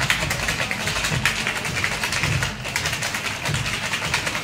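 Ice rattling and clacking hard inside a cocktail shaker being shaken vigorously, a fast, dense rattle pulsing with each stroke of the shake.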